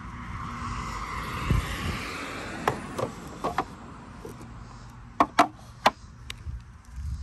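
Carved wooden serving trays knocking and clacking against each other as a small tray is nested back into the stack, a string of sharp knocks with the loudest three about five seconds in. A soft rushing noise sits under the first two seconds.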